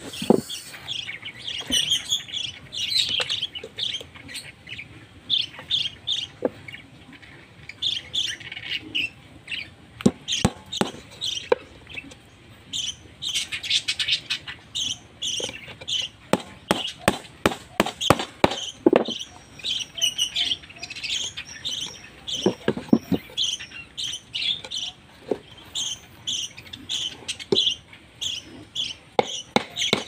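Small birds chirping over and over, short high calls in quick succession, while a claw hammer drives nails into plywood: single knocks and several quick runs of strikes, the densest a little before and after the middle.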